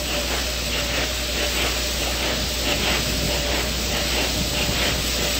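Steady hiss of background noise with a faint steady hum underneath.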